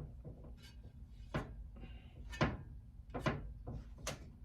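About five light knocks and clunks, roughly a second apart, from the heater's removed blower fan assembly being handled and moved about.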